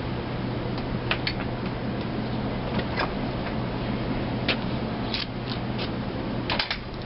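Cats eating food off paper plates: scattered small clicks and crunches, a cluster of them near the end, over a steady low hum and hiss.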